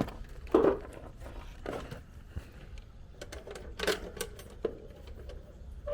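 Handling noises from work on the unit's electrical parts: scattered light clicks, taps and short scrapes, with louder clatters about half a second in and near four seconds.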